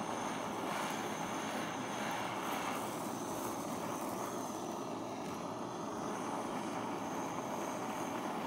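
Handheld gas torch flame burning with a steady, even hiss as it preheats a fluxed copper backplate for hard soldering.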